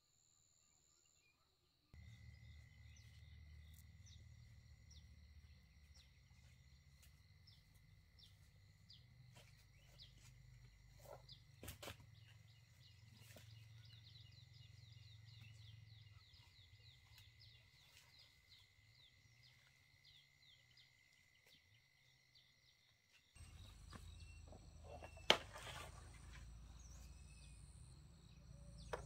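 Faint rural ambience: insects chirring steadily over a low rumble, with a few sharp clicks. The background changes abruptly about two seconds in and again a few seconds before the end.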